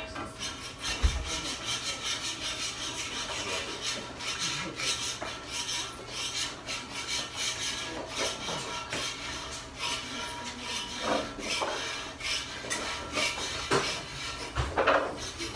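Metal spatulas scraping and chopping against a hot iron teppan griddle, many short rasping strokes at an uneven pace.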